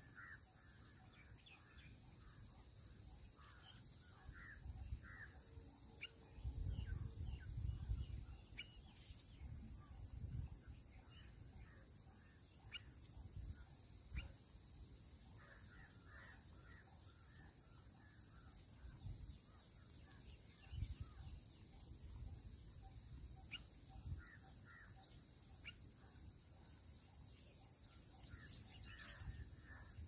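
Steady high-pitched insect drone, with scattered soft bird chirps and a few low rumbling bumps, loudest about seven seconds in and again near the end.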